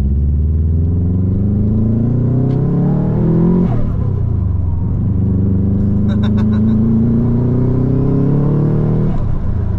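Turbocharged Subaru WRX flat-four engine under hard acceleration, heard from inside the cabin. The engine note rises through a gear for about three and a half seconds, drops at a shift with a brief rush of air from the blow-off valve venting, then rises again through the next gear until it drops near the end. A short run of clicks comes about six seconds in.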